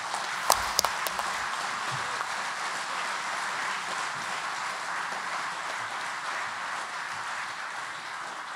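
Audience applauding steadily, with a few sharp, louder hits about a second in.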